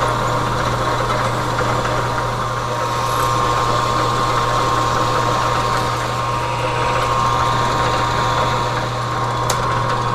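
Metal lathe running steadily, a constant hum with a high whine over it, as it takes a light final facing cut of about five thousandths on a 4140 steel part.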